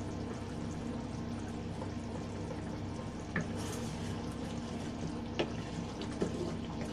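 Thick fish curry (meen kuzhambu) bubbling at a boil in an uncovered earthenware pot, over a steady low hum, with a few faint clicks.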